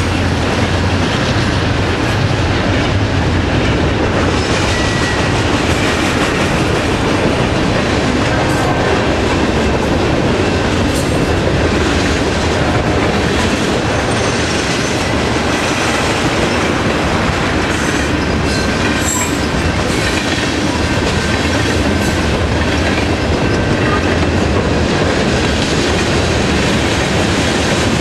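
Freight cars of a CN train, tank cars and covered hoppers, rolling past close by: a steady loud roar of steel wheels on rail, with clickety-clack over the rail joints and a few short faint wheel squeals.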